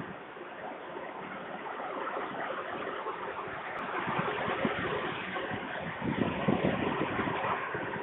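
Steady rushing noise of wind on an outdoor webcam microphone, growing a little louder about halfway through, with uneven low buffeting near the end.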